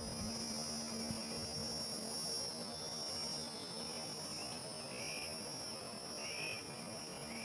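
Outdoor ambience: an even low noise with a steady high-pitched hum over it, and a few short chirps in the second half.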